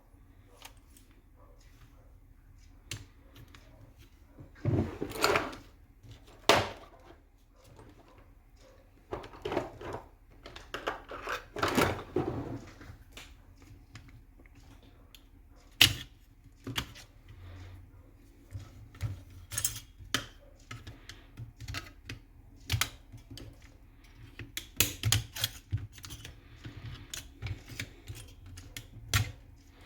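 Irregular clicks, knocks and scraping of parts being handled as an airsoft M14 rifle is taken apart. Longer rubbing or scraping sounds come about five seconds in and again from about nine to thirteen seconds.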